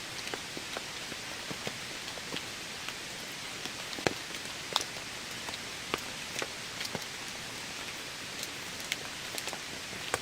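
Steady rain falling, with scattered heavier drops striking close by as sharp ticks; the loudest hits come about four and five seconds in.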